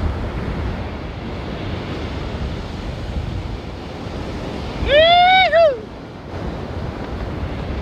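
Ocean surf breaking on a beach, a steady wash with wind buffeting the microphone. About five seconds in, one loud high-pitched call rises and falls for just under a second.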